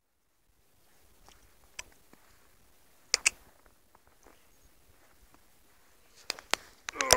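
Faint outdoor background broken by a few sharp clicks and crunches, the loudest pair about three seconds in. Near the end a dog gives a short, whining yelp.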